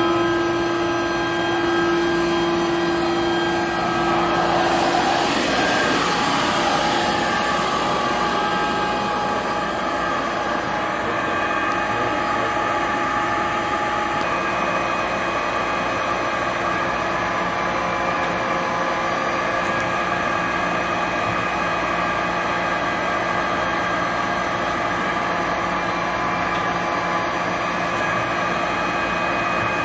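Okamoto IGM-1E universal internal grinder running under power: a steady motor hum with several whining tones. About five seconds in, a low tone drops out, a short rush of hiss follows, and higher whines then settle in and hold.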